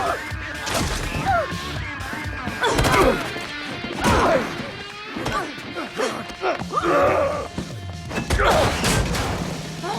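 Film fight-scene soundtrack: a music track with repeated punches, hits and crashes, the heaviest impacts about 3, 4 and 8.5 seconds in.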